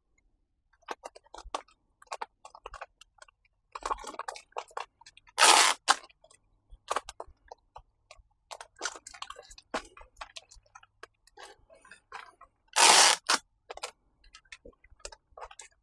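Packing an order by hand: a plastic mailer bag and packing materials crinkling and tapping, with two short, loud rasping bursts about five seconds in and again near the end.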